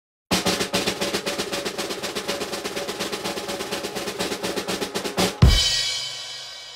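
Soundtrack music: a rapid snare drum roll of about five seconds, ending in a loud cymbal crash with a bass drum hit that rings and fades away.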